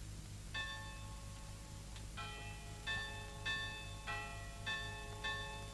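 Church bells ringing faintly, about seven strokes a little over half a second apart, each note ringing on into the next.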